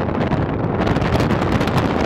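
Strong wind buffeting the microphone: a loud, gusty rumble that turns harsher and hissier just under a second in.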